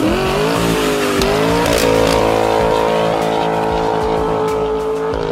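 Car engine and performance exhaust accelerating: the pitch climbs, dips briefly about a second in, rises again and holds a steady high note for several seconds, then falls away near the end.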